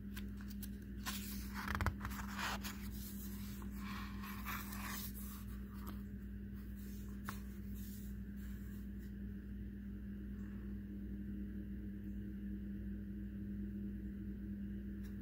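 Paper rustling and scraping for the first few seconds as a page of a picture book is turned and pressed flat, with a few small clicks, over a steady low hum.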